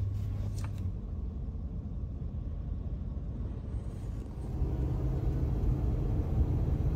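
Low, steady rumble of a van's engine and road noise, growing louder about four and a half seconds in as the van is driving.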